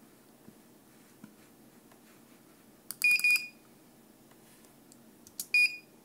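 Segnetics SMH4 panel controller beeping as its touchscreen keys are pressed: two quick short beeps about three seconds in, and a single beep near the end. Each beep comes with a faint tap just before it.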